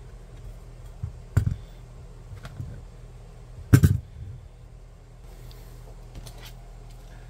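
A few sharp knocks and clicks from a small DIY camera dolly with skate wheels on bolt axles being handled and set down on a work mat, two of them louder, about one and a half seconds and four seconds in. A steady low hum sits underneath.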